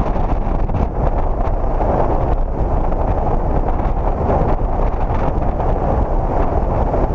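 Wind rushing over the microphone of a camera mounted outside a moving car, a steady low rumble of air with road noise underneath.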